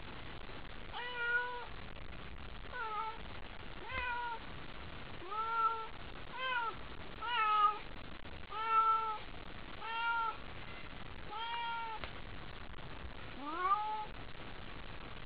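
Domestic gray cat meowing over and over, about ten short meows a second or so apart, each rising and falling in pitch. The cat is excited by a wand toy.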